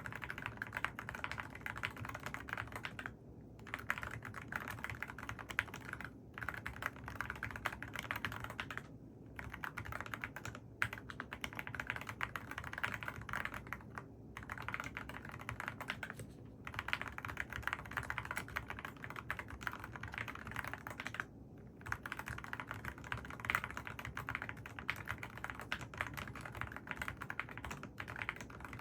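Mechanical keyboard with AKKO Rosewood switches being typed on in fast, continuous runs of key clicks, with brief pauses every few seconds.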